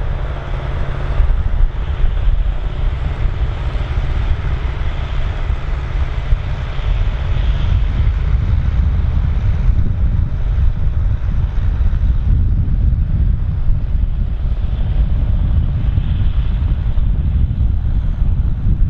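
Large articulated farm tractor's diesel engine running steadily, a continuous low rumble, with wind buffeting the microphone.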